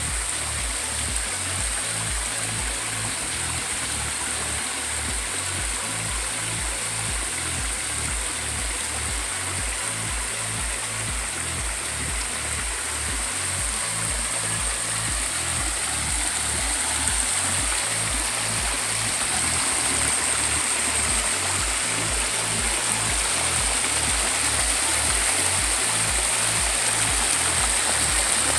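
Swollen stream rushing over rocks and pouring down a small cascade, a steady loud rush that grows louder about halfway through. The stream is running high after overnight flooding.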